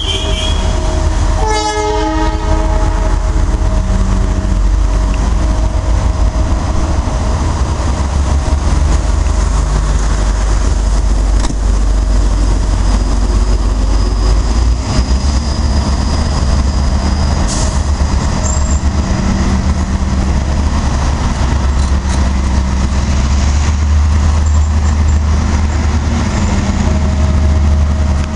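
Passenger coaches of a TCDD diesel-hauled train rolling past a station platform as the train pulls out: a steady, loud low rumble of wheels on the track. About two seconds in, the train horn sounds briefly.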